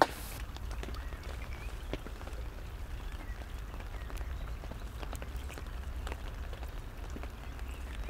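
Steady rain falling on the umbrella and the lake surface, with many scattered drop ticks over a low steady rumble. A single sharp knock right at the start is the loudest sound.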